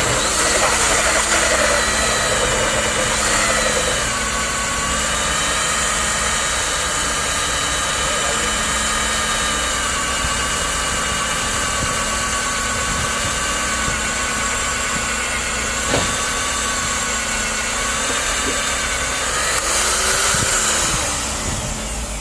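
Nitto WOJ-3200 magnetic drill's electric motor running with a steady whine. Its pitch drops about four seconds in as the drill takes up load, holds level, then rises again and fades near the end.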